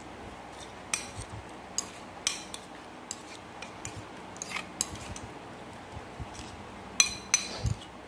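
A spoon clinking and scraping against a small ceramic bowl while stirring a chilli-lime dressing, with a handful of scattered clinks.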